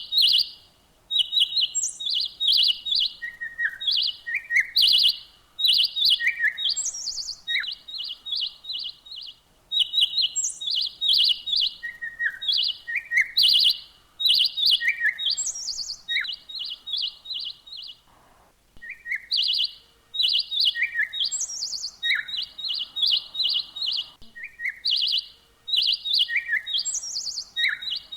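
Small songbirds chirping: quick runs of short, high, repeated notes broken by lower down-slurred calls and occasional higher rising notes, with a brief pause about two-thirds of the way through.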